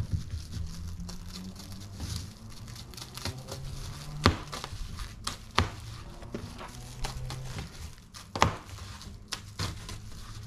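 Plastic stretch wrap on a wheel crinkling and tearing as it is pulled and cut open, with three sharp louder snaps about four, five and a half and eight and a half seconds in.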